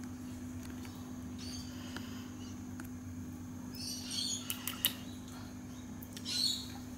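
A long-haired cat giving short, high, squeaky mews, a cluster about four seconds in and a louder one near the end, over a steady low hum.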